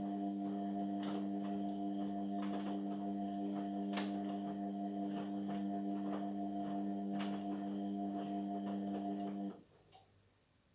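Indesit washing machine's drain pump humming steadily, with light ticks and rattles over the hum. It cuts off suddenly near the end, followed by a single click.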